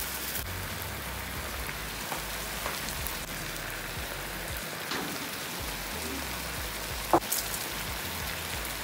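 Ground beef and sautéed tomato, pepper and onion frying in oil in a frying pan: a steady crackling sizzle, with a sharp click about seven seconds in.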